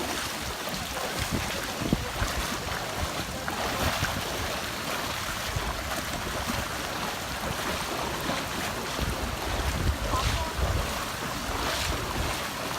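Rushing floodwater from an overflowing creek, with wind buffeting the microphone in uneven low gusts.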